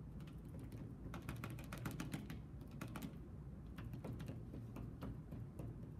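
Bundles of cotton swabs (Q-tips) dabbing paint onto paper on a table: a run of quick, irregular light taps, like typing.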